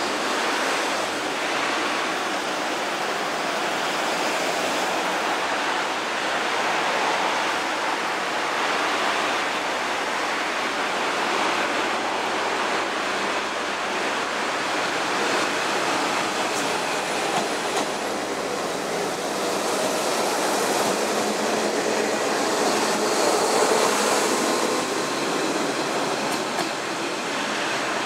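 Kanto Railway KiHa 0 series diesel railcar pulling into a station platform and standing there with its engine running: a steady, even rushing noise that hardly changes in level.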